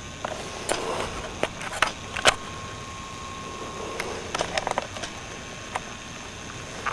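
Handling noise from a hand-held camcorder: two clusters of sharp clicks and knocks, the loudest about two seconds in, over a steady hiss with a faint high tone.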